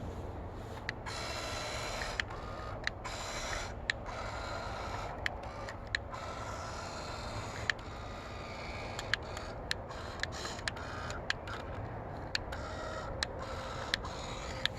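GoLight remote-controlled searchlight's pan-and-tilt motor whirring in several short runs, with many sharp clicks scattered irregularly throughout.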